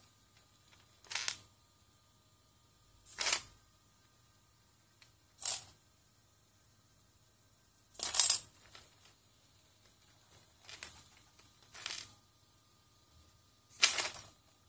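A four-legged walking robot's hobby servos whirring in short bursts as it lifts and sets down its legs one at a time, with loose Lego bricks clattering under its feet. There are seven separate bursts, the loudest near the end.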